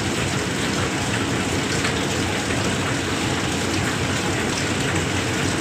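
Samsung microwave oven running, a steady whooshing hum of its cooling fan and airflow. The fan motor has been opened, cleaned of dust and greased, and the owner says it no longer makes the noise.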